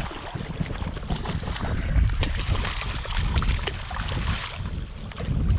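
Large spotted seatrout thrashing and splashing at the water's surface as it is scooped into a landing net, with wind buffeting the microphone.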